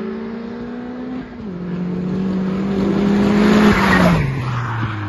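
Convertible car driving past: its engine note grows louder as it approaches, peaks about four seconds in, then drops in pitch as it goes by and fades.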